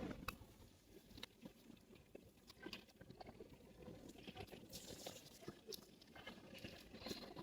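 Faint, scattered clicks and rustles of small objects being handled, as nebulizer equipment is set up.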